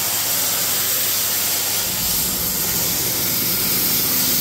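CNC plasma cutting torch, a Hardcut 82 air-plasma source on a mechanised table, cutting metal plate: a loud, steady hiss of the compressed-air plasma jet, with a lower hum joining about two seconds in.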